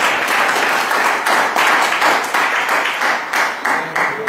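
An audience applauding, many hands clapping densely together. The applause stops near the end.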